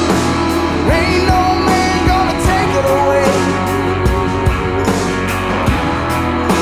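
Background song with a sung vocal over guitar and a steady drum beat.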